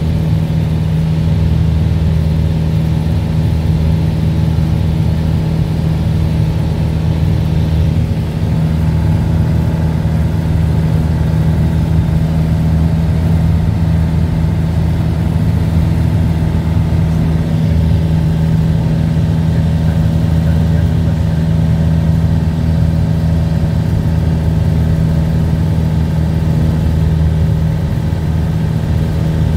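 Piston engine and propeller of a single-engine light aircraft running steadily in flight, heard from inside the cockpit: a loud, even drone with a strong low hum that holds its pitch throughout.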